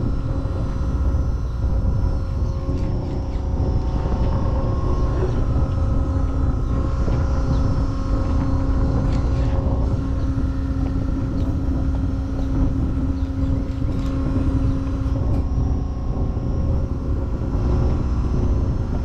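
An engine droning steadily, with a constant hum over a low, wavering rumble.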